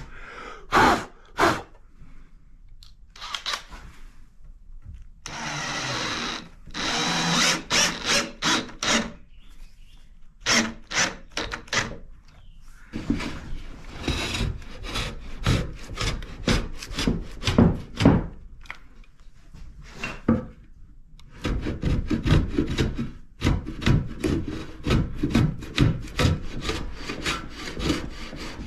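Hand tool working pine wood: a few separate knocks, then long runs of rhythmic back-and-forth rubbing strokes, about two to three a second.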